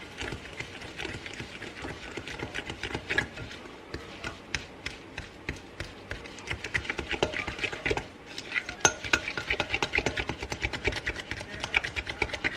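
A fork stirring and mashing softened butter with sugar and spices into a paste in a bowl: quick repeated scrapes and clinks against the bowl, coming faster in the second half.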